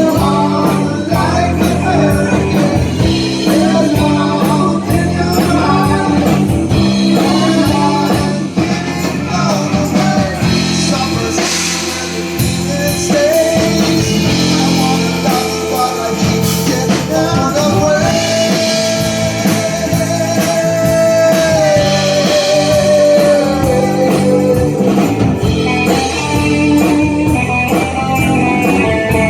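Live rock band playing, with electric guitar, drums and a singing voice. In the second half a long held note slides slowly downward.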